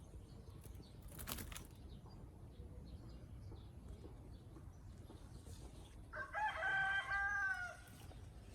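A rooster crows once, a single drawn-out crow a little past the middle. Earlier there is a brief crackle, about a second in.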